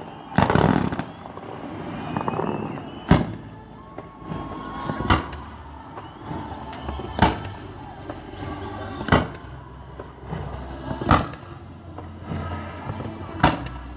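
Fireworks display: aerial shells bursting one after another, six sharp bangs about two seconds apart, after a loud rush of noise in the first second.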